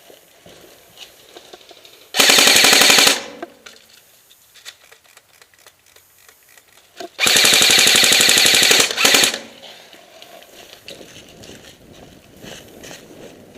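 Airsoft gun firing on full auto in two rapid bursts, a short one of about a second and a longer one of about two seconds.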